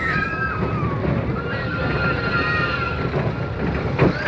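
Roller coaster train running, heard from on board: a low rumble with wind on the microphone and several high wavering squeals over it. A sharp knock comes near the end.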